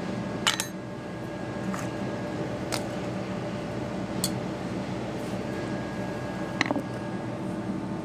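A few light, sharp clicks and clinks from hands handling parts in a refrigerator's compressor compartment, about five spread over several seconds, over a steady background hum.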